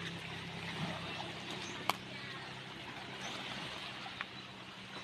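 Small waves lapping against a concrete seawall and rocky shore, a steady wash of water. There is a sharp click about two seconds in and a fainter one near the end.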